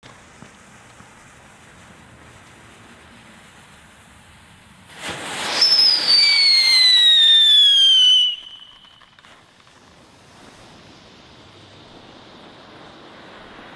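Black Cat Cat Mobile novelty firework car: a low fuse hiss, then about five seconds in its spark jet ignites with a loud whistle that falls steadily in pitch for about three seconds over a rushing hiss and cuts off suddenly. A quieter hiss follows as it burns on.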